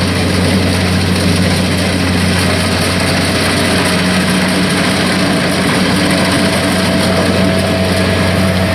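Kubota DC-70 combine harvester running steadily, its diesel engine and machinery humming at an even pitch. A faint high whine comes in about two and a half seconds in.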